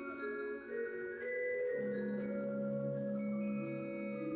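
Percussion orchestra of marimbas and vibraphones playing a slow orchestral intermezzo arranged for mallet percussion, with long ringing notes. Lower bass notes come in a little before halfway.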